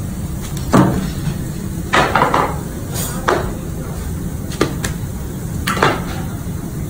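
Kitchen knife knocking and scraping against bone and a cutting board as a bone-in rib roast is carved, a handful of short sharp clacks over a steady low rumble.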